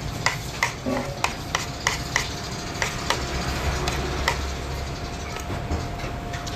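A run of sharp knocks and clinks from kitchen or eating utensils, about three a second, thinning out after about four seconds, over steady background noise.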